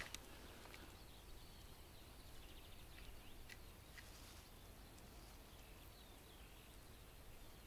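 Near silence: quiet outdoor ambience with faint, distant birdsong and a few soft clicks.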